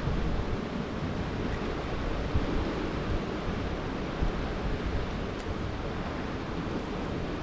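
Steady wash of sea surf breaking on the rocks, mixed with wind noise on the microphone.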